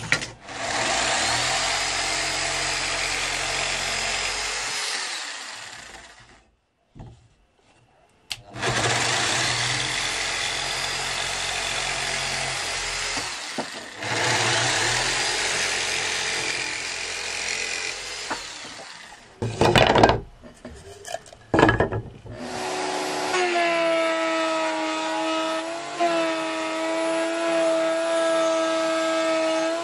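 Electric jigsaw cutting through a wooden strip in three runs of about five seconds each, the motor winding down at the end of each. A few sharp knocks follow, then another power tool starts at about 22 seconds and runs with a steady, even hum to the end.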